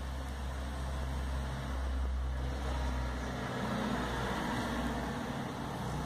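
Steady low hum of a car engine idling, with a faint hiss over it, heard from inside the cabin.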